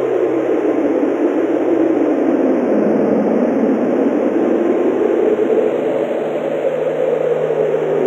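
Strong wind blowing steadily through a forest in a snowstorm: a dense, even rushing noise that swells and eases only slightly.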